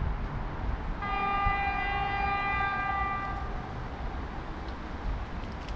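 Electric locomotive horn, the EP1M-606 approaching with its train, sounding one long steady blast of about two and a half seconds starting about a second in, over a low rumble of wind on the microphone.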